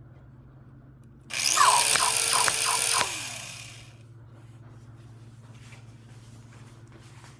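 Powerman toy robot playing an electronic sound effect through its small speaker: a harsh hissing burst laced with swooping, warbling tones, starting about a second in and fading out after about two and a half seconds.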